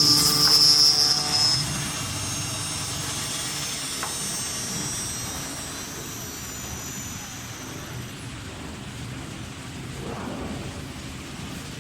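Wood boring machine's spindle motor running with a loud high whine for about the first second and a half, then winding down: the whine slowly falls in pitch and fades over several seconds, leaving a steady machine hum.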